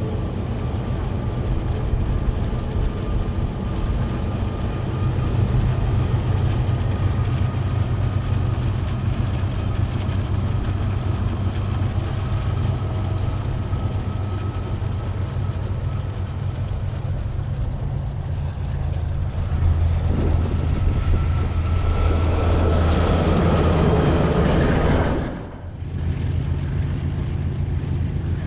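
KiwiRail diesel-electric freight locomotives running under power, a steady low rumble with a faint steady whine above it. It grows louder for a few seconds near the end, then drops out briefly.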